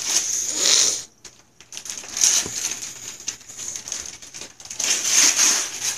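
Christmas wrapping paper being torn and crinkled as a present is unwrapped, in several bursts of ripping.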